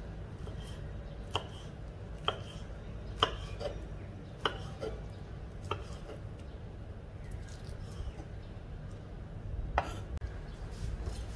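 Large kitchen knife chopping firm white vegetable into cubes on a thick round wooden chopping block: single sharp knocks of the blade on the wood, about one a second, then a pause of about four seconds before one last stroke near the end. A low steady hum runs underneath.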